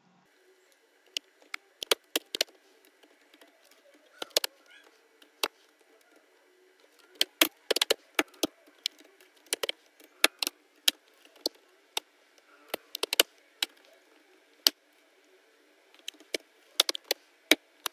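Computer keyboard typing: scattered, uneven keystroke clicks, some single and some in quick little runs, with pauses of up to a second or so between them.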